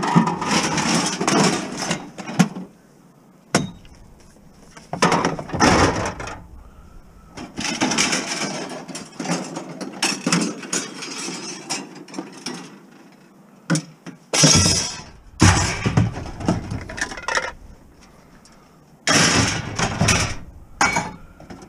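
Empty bottles and cans clattering and clinking as they are handled and dropped into sorting bins, in several bursts of a second or a few seconds with short pauses between.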